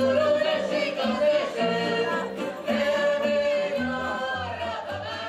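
Slovak folk song with several voices singing together over a string band accompaniment, with a steady bass line.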